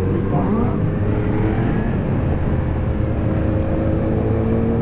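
Motorcycle engines running in a group ride, the rider's own bike speeding up gently, with pitch lines that hold steady or rise slowly, over steady wind rush on the rider-mounted microphone.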